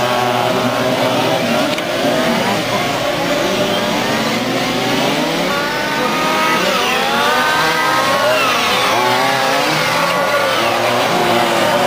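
Several fuel-engined radio-controlled race cars racing together, their small high-revving engines whining and overlapping, each pitch rising and falling as the cars accelerate, lift off for corners and pass by.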